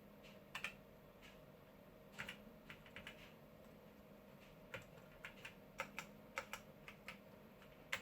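Keys on a Toshiba T1600 laptop keyboard being pressed in irregular taps and short clusters, repeated because the keyboard is not very responsive. A faint steady hum runs underneath.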